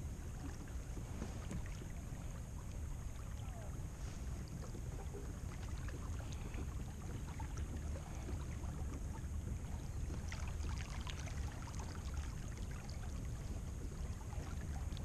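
Quiet ambience aboard a kayak on calm water: a steady low rumble with faint scattered clicks and ticks over it.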